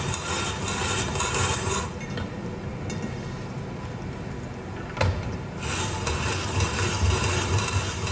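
Hand-cranked spiralizer shaving a carrot into spiral strips: a rough, continuous rasp of the blade and the turning plastic crank. It eases off about two seconds in, a sharp click comes about five seconds in, and the cranking picks up again just after.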